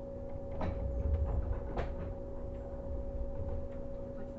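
Inside a JR 115 series electric train's motor car: a steady hum held at two constant pitches over a low rumble, with two sharp knocks about half a second and just under two seconds in.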